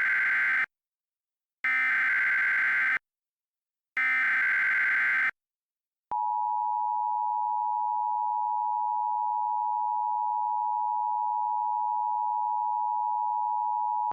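Emergency Alert System SAME header: three short screeching digital data tones, the first already under way. About six seconds in, the EAS attention signal starts: a steady two-tone alert of 853 and 960 Hz held for about eight seconds.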